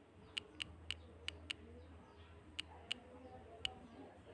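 Clicks of typing on a smartphone's on-screen keyboard: about eight short, sharp key taps at an uneven typing pace, over a faint low hum that fades out about three seconds in.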